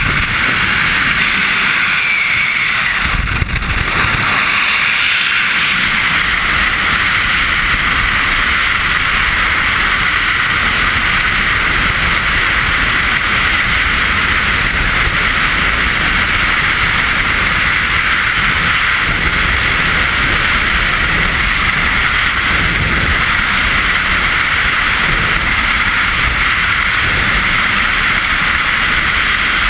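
Skydiving freefall airflow rushing over a GoPro camera's microphone: loud, steady wind noise with no letup, settling into an even rush a few seconds in after the exit from the aircraft.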